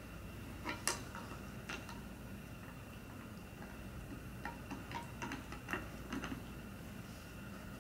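Greyhound gnawing an antler: her teeth knock and scrape on it in sharp, irregular clicks, the loudest about a second in and a cluster of them in the second half.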